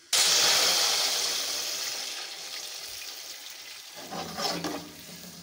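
Water poured into hot oil with tempered cumin seeds in a steel pot: a sudden loud hiss and spatter that slowly dies down into a softer sizzle.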